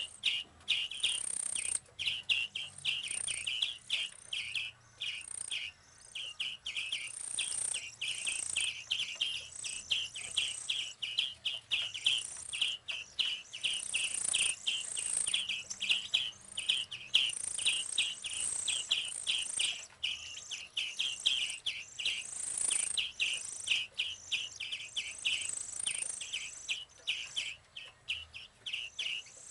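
Hand-reared small birds chirping: a continuous rapid series of short, high chirps, about three a second, with higher, thinner calls mixed in.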